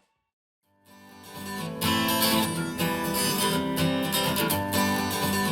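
Silence for a moment, then a guitar-led pop song fades in and plays at full level, coming from a compact studio monitor speaker and picked up by a microphone in the room.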